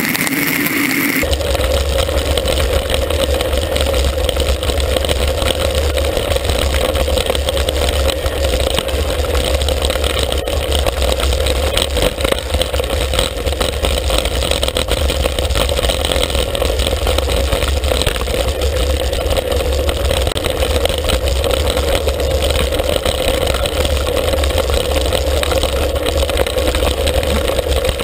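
Steady wind rush and rumble on an action camera's microphone as a road bike descends a gravel road at speed, with the tyres rolling over the loose surface. The sound changes suddenly about a second in.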